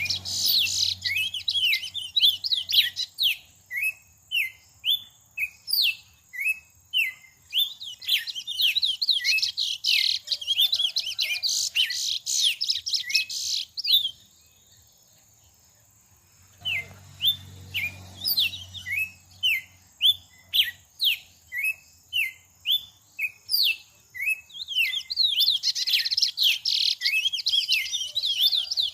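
Songbirds chirping and calling in a dense run of short, quick notes. About 14 seconds in the calls stop for two or three seconds, then start again.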